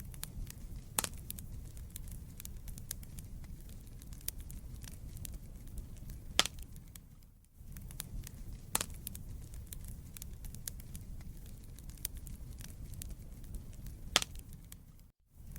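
Wood fire burning in a fireplace: a steady low rumble of flames under constant small crackles, with a handful of sharp, loud pops from the logs. The sound drops out for a moment about halfway through and again near the end.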